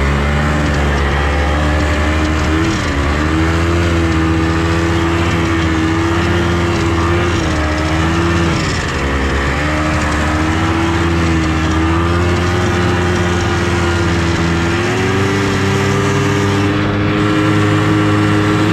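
Snowmobile engine running at a fairly steady speed, its pitch wavering slightly and rising a little near the end.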